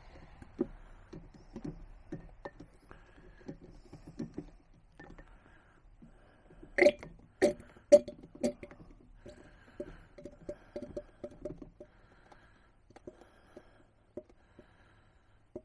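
Small clicks and taps of hand work, with four sharp knocks about half a second apart near the middle, then a quick run of lighter taps.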